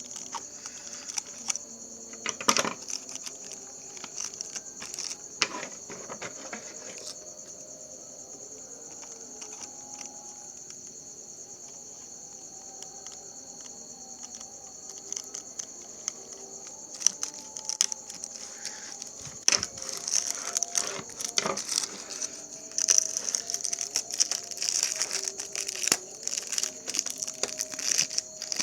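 Irregular clicks, rustling and crinkling of a package and its box being handled and opened, busier in the second half, over a steady high-pitched insect chirr.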